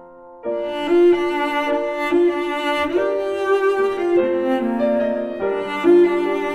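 Background music played on bowed strings. A fading phrase gives way about half a second in to a new passage, with the notes changing roughly every half second.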